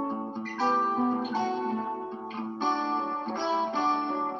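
Instrumental break in a song: guitar chords playing with no singing.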